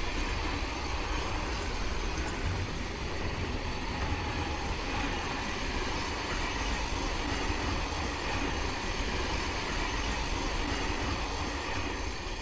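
Rheingold express passenger coaches rolling past: a steady rumble of wheels on track, beginning to fade at the very end.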